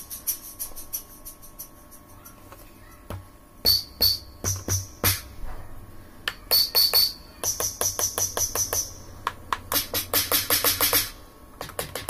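Roland SPD-20X percussion pad playing its electronic drum sounds as its pads are struck during a repair test: scattered single hits at first, then a fast run of drum-machine-style hits in the second half.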